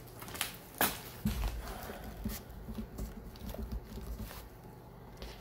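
Handling noise from a camera phone being picked up and moved: a sharp knock just under a second in, then low rumbling and scattered light knocks and taps as it is carried.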